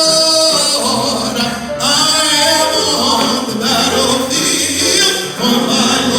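Gospel song: voices singing with instrumental accompaniment.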